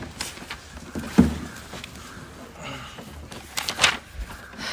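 Someone sitting down at a wooden lecture-hall bench-desk: a thump about a second in, then rustling and a few sharp clicks near the end, over a faint steady room hum.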